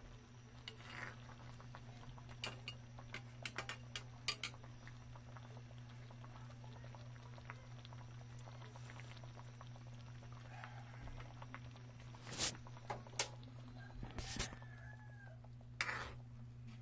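Pan of noodle broth simmering on a stove, with scattered small clicks and, in the last few seconds, several louder knocks, over a steady low hum.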